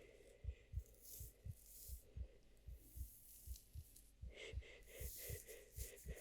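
Heartbeat sound in regular, steady low thumps, played quietly. A soft rustling-like sound joins in over the last two seconds.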